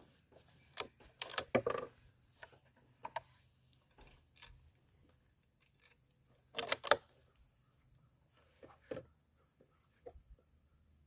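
Scattered metallic clicks and clacks of a bolt-action rifle being handled between shots, with the loudest quick run of clicks about seven seconds in.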